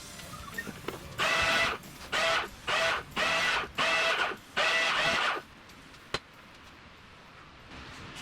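A small motor-driven mechanism run in five short bursts of about half a second each, each with a steady whine, followed by a single sharp click.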